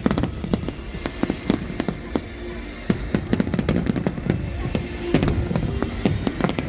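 Fireworks bursting in quick, irregular succession: many sharp bangs and crackles close together, with music underneath.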